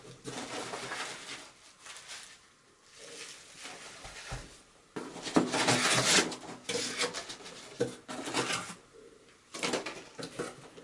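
Bubble wrap and cardboard packing rustling and scraping as items are handled and lifted out of a cardboard box, in irregular bursts, loudest about five to six seconds in.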